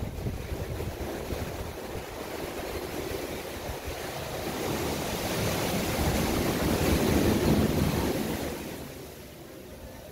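Sea waves washing, with a steady rush that swells louder about halfway through and dies down near the end, and wind buffeting the microphone.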